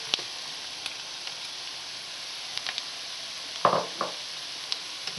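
Onions and julienned carrots frying in hot vegetable oil in a deep frying pan: a steady sizzling hiss, with a few light clicks and one louder knock a little under four seconds in.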